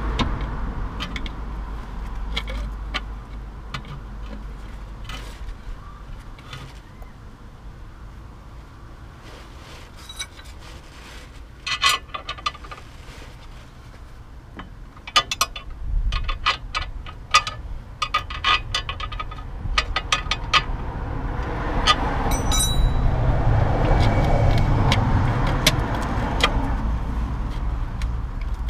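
Scattered metallic clinks and knocks as a new lower suspension arm is worked into place under a VW Golf Mk4 and its ball joint is fitted. A louder low rumble swells and fades near the end.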